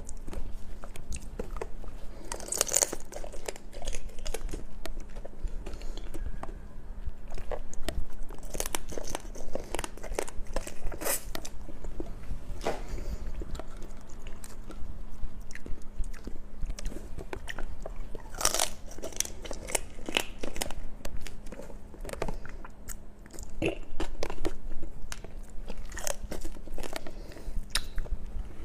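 Close-up eating sounds: a person biting and chewing raw shrimp, with irregular crunches and wet clicks.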